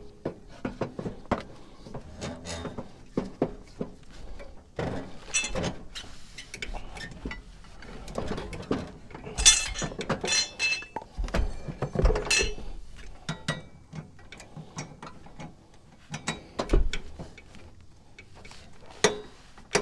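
Irregular clinks, clicks and knocks as a socket wrench and a wooden block are handled against a riding mower's blade and deck while the blade nut is fitted and tightened, with a loud cluster of knocks about halfway through.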